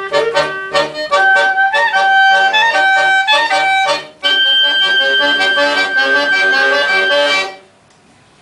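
Accordion and clarinet duo playing a lively tune in quick runs of notes. After a brief break about four seconds in, a long held high note sounds over the accompaniment, and the music stops near the end.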